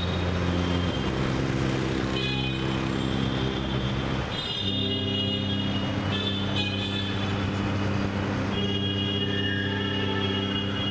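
Slow, sustained drone chords that shift to a new chord every few seconds, over a steady wash of city street traffic.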